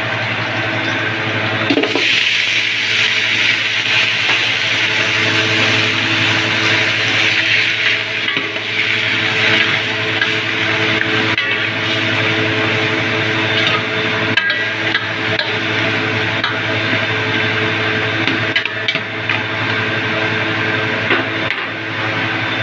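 Chopped raw goat head meat sizzling as it goes into a hot aluminium pot of sautéing garlic, onion and ginger, the hiss swelling about two seconds in and easing after about ten. It is then stirred with a metal ladle, with a few sharp knocks and scrapes against the pot, over a steady hum.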